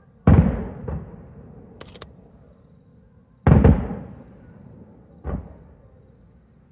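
Aerial firework shells bursting: two loud booms about three seconds apart, each fading out over about a second, with smaller bangs after each and a brief sharp crack between them.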